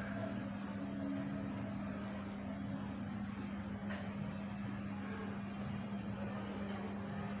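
Steady low machine hum over a constant background noise, with a faint click about four seconds in.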